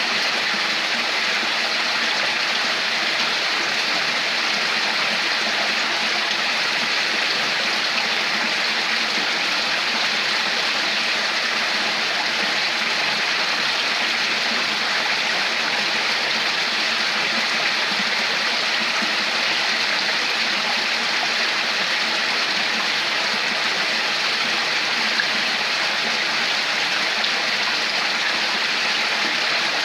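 Running water, a stream flowing and babbling steadily without a break.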